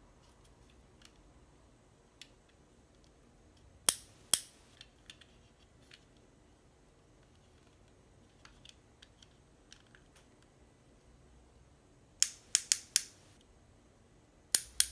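Sharp plastic clicks from a Rexing dashcam being handled and adjusted at its mount: two about four seconds in, a quick run of about five near the end and one more just before it ends, with fainter ticks between.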